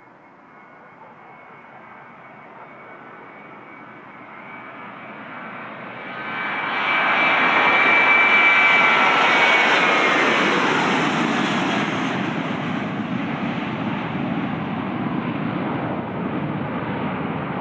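Boeing 737-800's twin CFM56-7B turbofan engines at takeoff power as the airliner rolls down the runway and lifts off. The engine noise builds and is loudest as the plane passes, about seven seconds in. Its high fan whine then drops in pitch, and the noise eases into a rumble as the plane climbs away.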